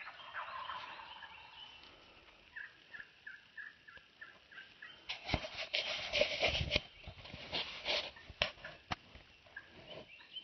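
Wild turkey gobbling at the start, then a run of about eight short yelping notes, about four a second. After that come loud rustling and knocks in the second half.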